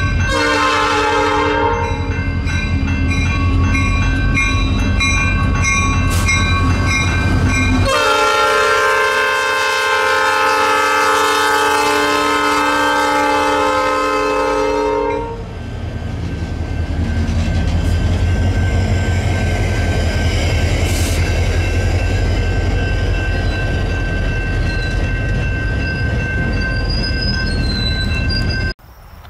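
A CN freight train's diesel locomotives sounding a multi-chime air horn, a short blast and then a long one of about seven seconds, over the steady rumble of the engines. After that comes the rumble and rail noise of the train rolling past. Another horn blast starts at the very end.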